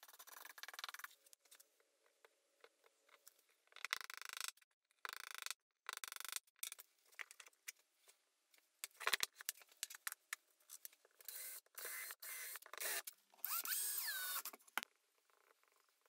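Stiff brush scrubbing charred wood, followed by a series of short scraping, rubbing and knocking sounds from wooden parts being handled and worked.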